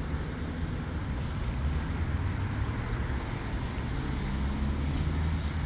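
Steady road traffic: a low vehicle engine hum with tyre hiss on wet roads.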